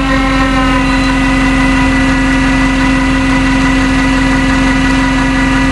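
Tow truck's hydraulic winch spooling new cable onto its drum, with a steady pitched whine over the running engine. The pitch settles slightly in the first half second, then holds steady.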